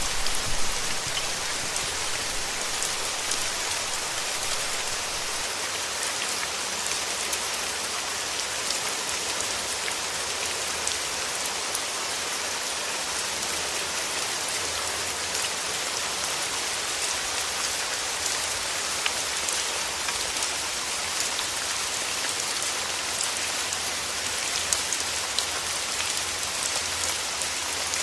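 Steady rain, an even hiss with individual drops ticking through it. A low rumble fades out in the first second.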